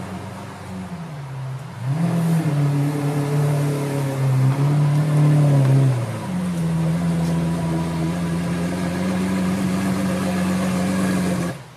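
Lamborghini Aventador Super Veloce V12 engine revving, swinging up in pitch about two seconds in and holding revs, then running at a steady note from about six seconds until it cuts off suddenly near the end.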